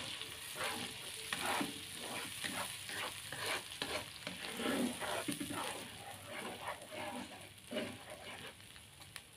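Ground chili and shallot paste sizzling in hot oil in a nonstick wok, with repeated irregular scraping strokes of a spatula stirring it.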